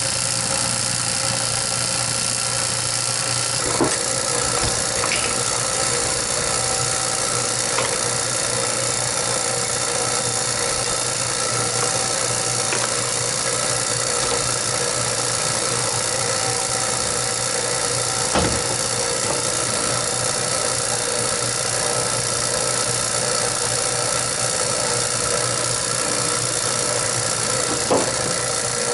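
Vacuum pump running steadily with an even mechanical hum while it evacuates a refrigeration system to below 300 microns, with a few brief knocks.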